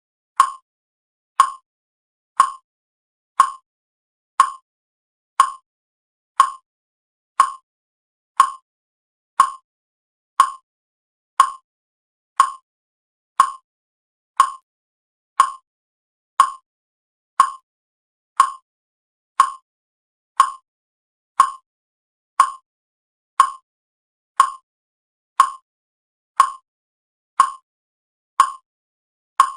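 Faucet dripping: single water drops fall at an even pace of about one a second, each a short, sharp drip with clean silence between.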